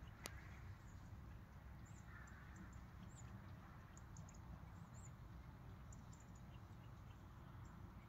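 Near silence: faint outdoor ambience of a steady low wind rumble with scattered faint high chirps, and a single sharp click just after the start.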